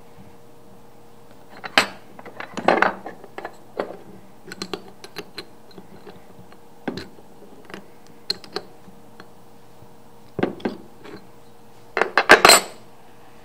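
Flat steel wrenches clinking against the tapping head's collet nut and knocking on the wooden bench while a small tap is fitted and its collet tightened. Irregular light metal clicks throughout, with a few louder clatters and the loudest near the end.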